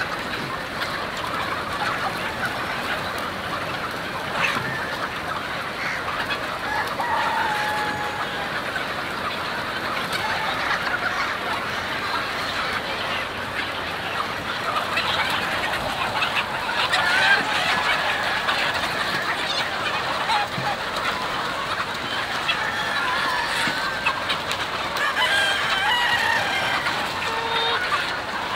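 A large flock of chickens clucking and cackling without a break, with roosters crowing several times, mostly in the second half.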